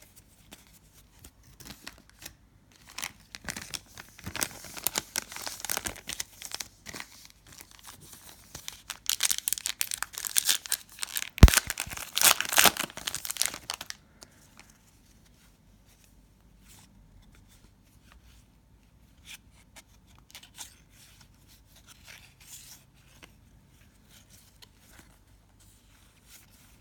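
A trading card pack wrapper being torn open and crinkled for several seconds, with one sharp snap about halfway through, followed by faint rustle and ticks of the cards being handled.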